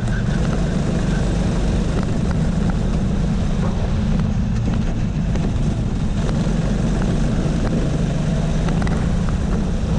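Go-kart engine running hard at racing speed, heard from the kart itself. Its pitch rises and falls a little with the throttle through the corners.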